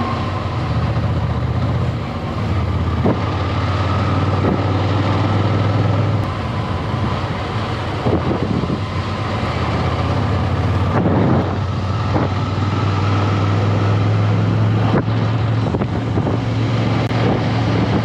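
Ducati Scrambler's L-twin engine running steadily under way, with wind buffeting the camera microphone and a few sharp knocks through the ride.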